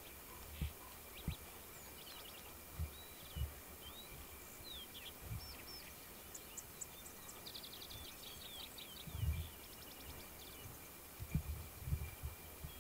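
Small songbirds chirping and trilling, with short rising and falling calls and a quick burst of rapid trills around the middle, over a steady faint high tone. Short low thumps come every second or two and are the loudest sounds.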